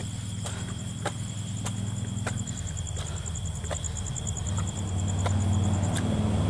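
Night insects calling, a steady high buzz with a pulsing trill, over footsteps on concrete steps at a steady walking pace, about one step every half-second. A vehicle's low engine hum grows louder near the end.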